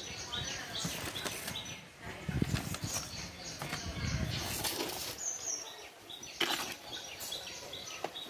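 Handling noises: paper rustling and brushing, with a couple of dull thumps near the middle. A bird chirps in quick repeated series behind it, near the start and again in the second half.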